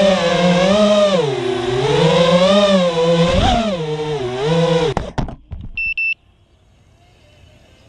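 Small FPV quadcopter's electric motors whining, the pitch rising and falling with the throttle, then cutting out about five seconds in with a few knocks as the drone sets down. A short high beep follows about a second later.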